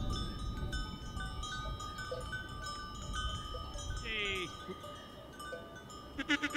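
A small flock of sheep and goats with bells ringing steadily, and a sheep bleating near the end.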